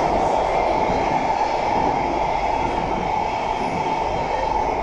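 SMRT C151B metro train running steadily through a tunnel, heard from inside the carriage: an even rumble and rush of wheels on rail and air, with a faint steady whine over it.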